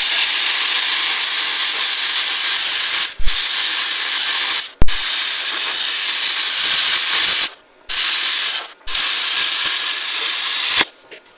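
Plasma cutter cutting a steel truck frame rail: a loud, steady hiss that stops and restarts four times, with a short low thump at several of the restarts, and cuts off shortly before the end.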